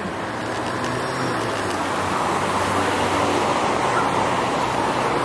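Street traffic noise: a motor vehicle's engine hum with tyre and road noise, growing a little louder over the first few seconds and then holding steady.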